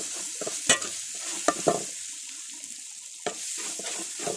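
Onion and spice masala frying in oil in a pan while it is stirred with a spoon: a steady sizzle with a few sharp scrapes and knocks of the spoon against the pan. The masala is being fried until its raw smell goes.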